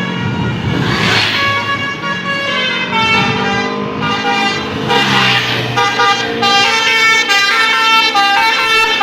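Bus telolet horn (Basuri multi-tone horn) playing a tune of several notes that change in steps, getting quicker in the second half, with the bus's engine running underneath.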